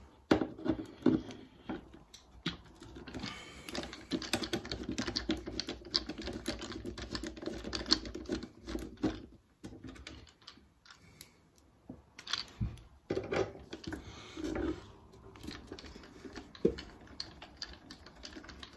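Flat-head screwdriver working stiff screws out of the steel deck panel of a Suffolk Super Colt mower: small metallic clicks and scraping, with a dense run of quick clicks in the first half and a few sharper knocks later.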